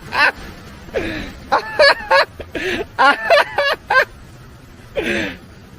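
A person laughing in runs of quick, short syllables, with breathy bursts between them.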